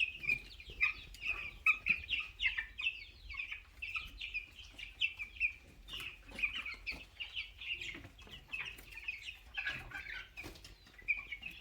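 A flock of two-week-old broiler chicks peeping, many short high cheeps overlapping without pause.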